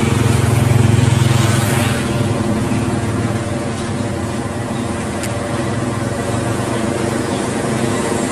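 Diesel-electric locomotive hauling a passenger train across a steel truss railway bridge: a steady engine drone, loudest in the first two seconds, then slightly quieter.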